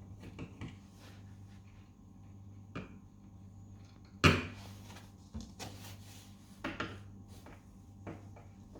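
Scattered knocks and clicks of a kitchen cabinet door and its hinge being handled and worked on, with one sharper knock about four seconds in. A faint steady low hum runs underneath.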